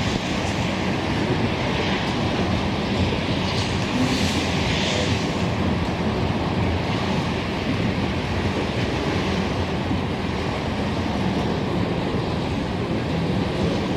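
Steady rumble and rush of a Norfolk Southern freight train's cars rolling past, mixed with wind buffeting the microphone.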